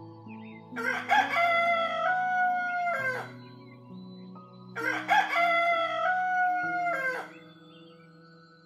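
Rooster crowing twice, each cock-a-doodle-doo lasting about two and a half seconds and ending with a falling tail, the second about four seconds after the first, over soft background music.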